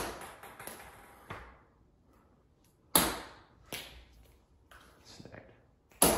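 Golf club striking balls off a hitting mat, giving sharp clicks about three seconds apart: one about halfway through and one at the very end. Each click is followed by fainter knocks.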